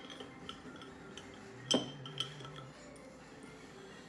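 Metal keychain bottle opener clinking against the crown cap of a glass soda bottle as it is worked onto the cap: a few light taps, then one sharp clink with a short ring a little under two seconds in and a softer one just after.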